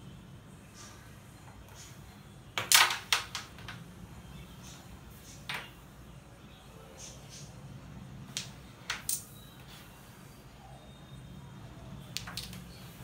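Carrom game: the striker is flicked across the wooden board and clacks into the carrom men, a burst of sharp clicks about three seconds in. Scattered single and paired clicks of striker and pieces follow later.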